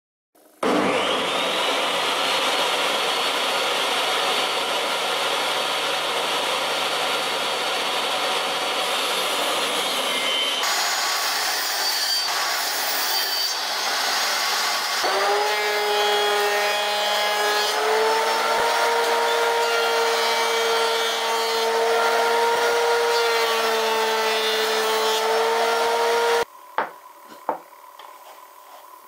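Table saw starting up and cutting pine boards, heard as steady motor-and-blade noise in several spliced stretches, the last with a steady wavering hum. Near the end it cuts off sharply, leaving a few light knocks of boards being handled.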